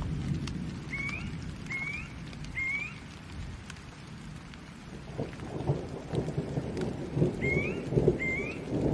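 Steady rain with rolling thunder: a low rumble dies away, then a new peal builds and crackles about halfway through. Short rising chirps sound over the rain, three near the start and two near the end.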